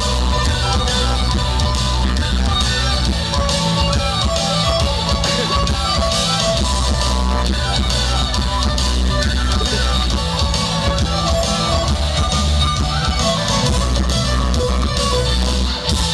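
Loud Spanish-language rock music with drums and electric guitar, playing through a DJ sound system. The loudness dips briefly near the end.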